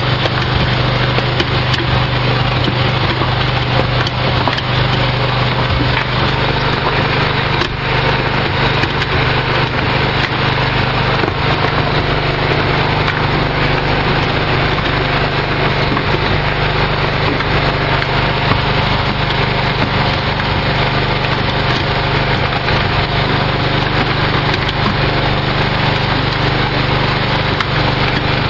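Pothole-filler mixer running steadily, churning a batch of cold-mix bitumen filler, with a constant low hum and a dense gritty rattle throughout.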